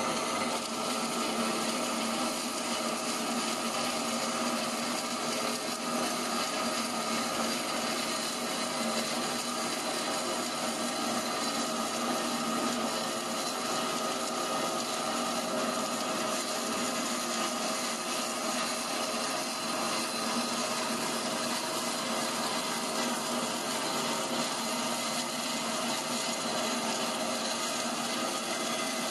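Abrasive-wire CNC foam cutter running, its fast-moving wire sawing through rigid PUR foam with a steady rasping noise and a constant machine hum.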